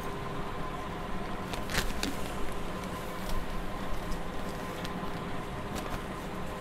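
A whiteboard duster wiping marker writing off a whiteboard: light rubbing and a few soft taps against the board, mostly in the middle. Under it runs a steady room hum with a faint whine.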